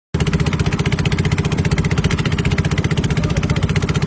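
Small engine running steadily at a constant speed, with a rapid, even pulsing beat.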